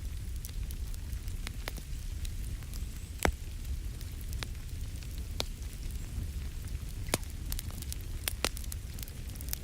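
Wood fire crackling in a fireplace: scattered sharp pops and snaps, one louder crack about three seconds in, over a steady low rumble.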